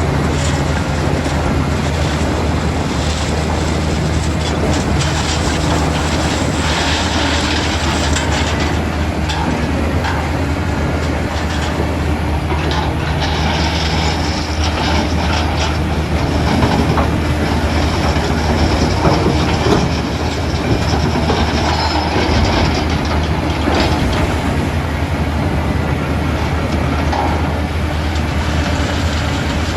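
JCB 3DX backhoe loader's diesel engine running steadily under working load, with metal rattling and clanking from the machine as it digs and loads mud.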